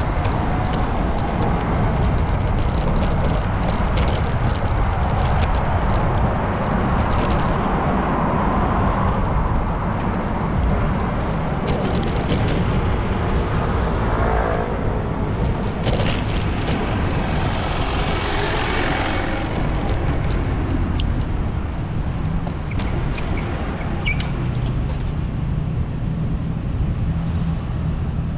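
City road traffic heard from a bicycle-mounted action camera: a steady low rumble of wind on the microphone and road noise, with cars and buses passing. A vehicle's hiss rises and fades about two-thirds of the way through, and a few sharp clicks follow near the end.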